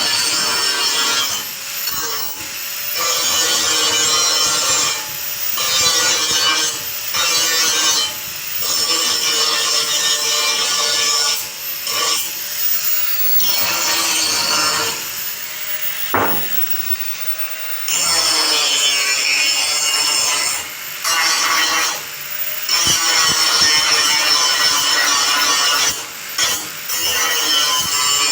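A saw cutting through metal for the stand's frame, in repeated strokes a second or two long with brief pauses between, with a metallic ringing through the rasping noise.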